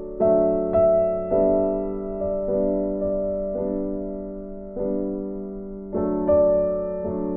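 Background music: a soft piano tune of single notes and chords, struck about once a second and left to fade.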